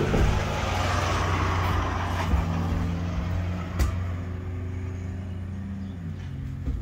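Motor vehicle engine hum with road noise, fading gradually. Its pitch drops near the end, as of a vehicle going past.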